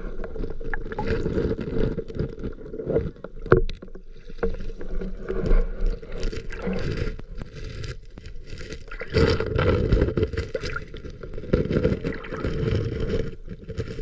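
Muffled underwater sound of shallow lake water surging back and forth over a pebble bed, with gurgling swells and scattered short clicks. A louder surge comes about nine seconds in.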